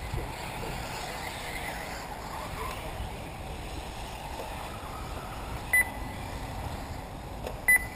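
Two short electronic beeps, about two seconds apart, over steady wind noise on the microphone.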